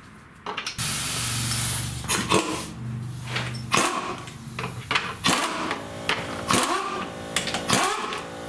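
Power tool spinning lug nuts onto the wheel studs, snugging them before final torque by hand. It runs in two longer stretches early on, then several shorter ones with clicks and clatter between them.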